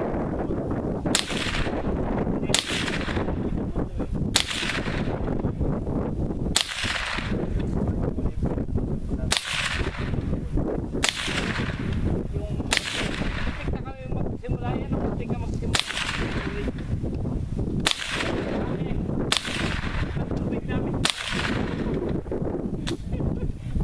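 Mendoza Mexar .22 LR rifle firing single shots, about eleven sharp cracks roughly every two seconds, each with a short fading tail.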